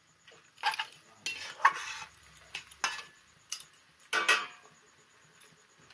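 Spatula scraping and stirring pumpkin greens around a metal kadai while stir-frying: about six irregular scrapes with short pauses between, the loudest a little under two seconds in and again just after four seconds.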